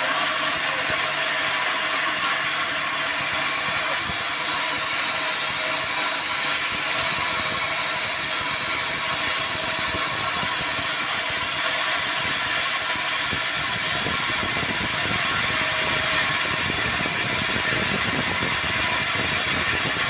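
Band sawmill running steadily while sawing a mahogany log, an even, unbroken machine noise.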